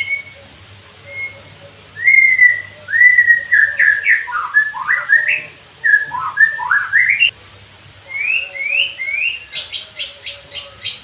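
White-rumped shama (murai batu) singing: a string of loud whistled notes that swoop up and down, ending in a fast run of short, sharp clicking notes near the end.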